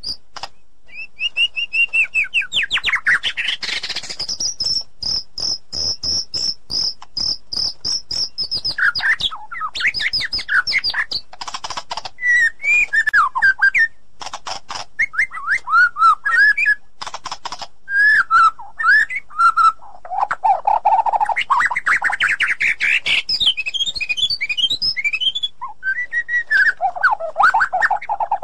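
White-rumped shama singing a loud, varied song. It mixes rapid clicking notes, a long fast high trill and whistled notes that slide up and down, phrase after phrase with hardly a pause.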